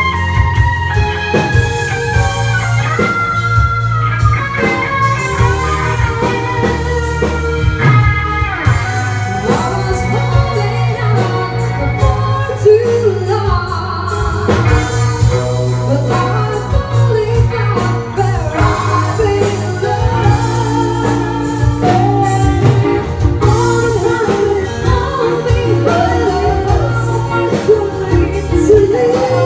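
Live band playing a pop-rock song: singing over electric guitar, keyboard and drums.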